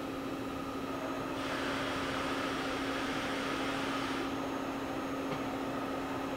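Kitamura Mycenter 4 CNC vertical machining center running with a steady hum, while one of its axes traverses: a hiss of servo drive and ballscrew motion comes in about a second and a half in and stops about three seconds later. The axis movement is quiet.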